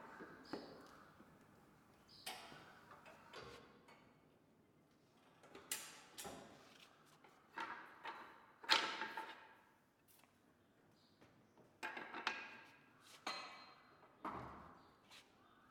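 Irregular knocks and clacks from handling in a workshop: about a dozen sharp hits with short ringing tails, spaced unevenly and a second or more apart.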